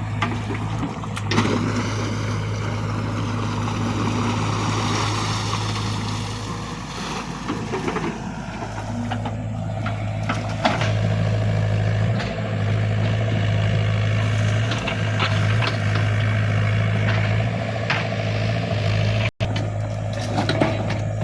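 XCMG mini excavator's engine running steadily under digging work, with a few sharp knocks scattered through.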